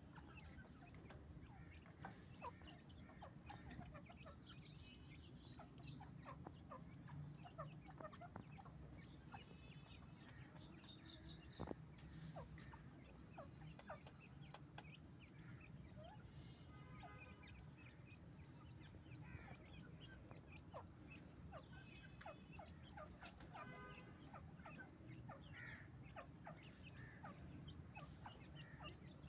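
Grey francolin hen and her small chicks calling faintly: scattered thin chick peeps and soft clucks throughout, with a few short runs of rapid repeated peeping.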